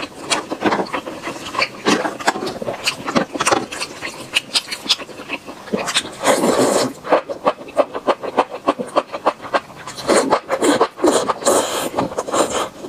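Close-miked eating sounds: loud, wet chewing and mouth smacking with many quick clicks. A longer burst about six seconds in comes as a bunch of cooked enoki mushrooms is bitten and sucked in, and another follows around ten seconds.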